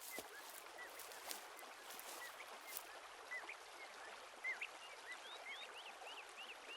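Small birds chirping, many short rising and falling calls in quick succession, over the steady faint rush of a flowing stream.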